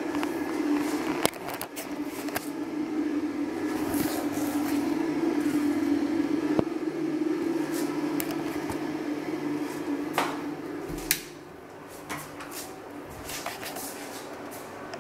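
Steady hum of a bathroom fan with scattered clicks and knocks from door and handling; about eleven seconds in a sharp click comes and the hum drops away to a much fainter background.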